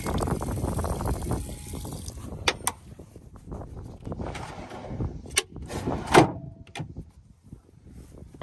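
Water running from a fold-out faucet into a plastic sink basin for about two seconds, then the wooden drawers of a truck-bed drawer system being handled, with several sharp knocks as they slide and shut, the loudest about six seconds in.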